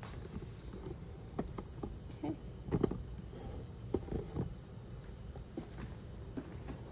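Handling noise of a camera tripod being moved and set in place: scattered light knocks and clicks, the loudest about three seconds in, over a low room hum.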